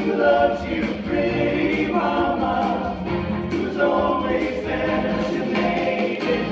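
High school men's vocal ensemble singing together as a choir, with no break.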